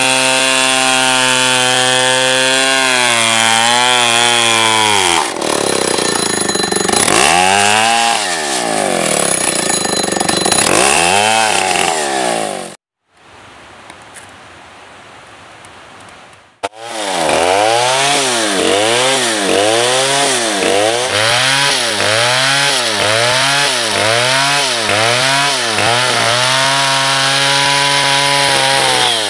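Stihl chainsaw ripping a log lengthwise into planks. It runs at steady high speed under load, then its pitch swings up and down. Midway the sound drops away for a few seconds; when it returns the saw is revved up and down about once a second before holding steady at full throttle near the end.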